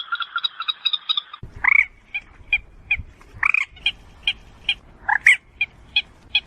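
Common moorhen calls: a fast run of clipped, croaking notes. After about a second and a half it gives way to slower short sharp notes, about two a second, broken by three louder downward-bending calls.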